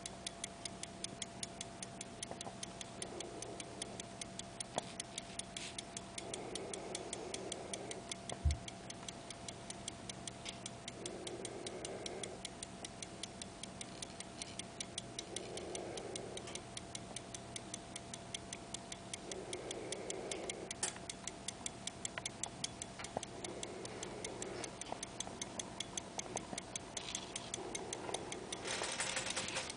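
1798 verge fusee pocket watch ticking, a fast, even tick of several beats a second, the movement running after a broken fusee chain was replaced. One dull thump sounds about a third of the way in.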